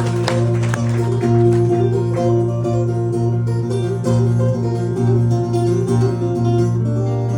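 Acoustic guitar picked solo, a low bass note repeating under a melody line, as the instrumental intro to a song.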